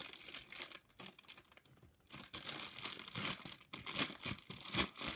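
Plastic packaging crinkling and tearing as a squishy toy is unwrapped by hand; the handling pauses about a second in, then picks up again with sharper, louder crinkles toward the end.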